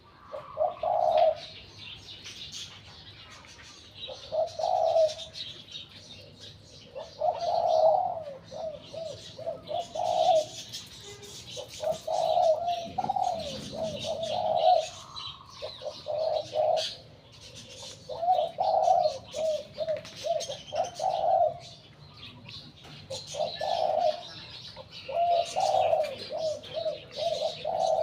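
Spotted dove (decoy bird of the 'three-kuk' coo type) cooing over and over in short phrases every few seconds, with small birds chirping in the background.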